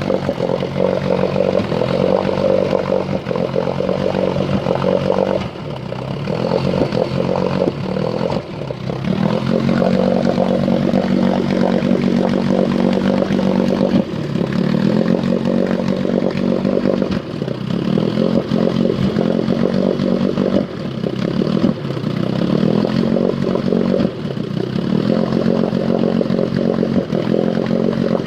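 Engine idling roughly with the choke off and the idle set low, sputtering and missing. Its speed sags and recovers every few seconds.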